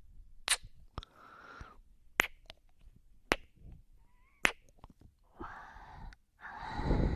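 ASMR kissing and breathing sounds close to the microphone: several sharp, wet kiss clicks about a second apart, with breathy exhales between them. The loudest, longest breath comes near the end.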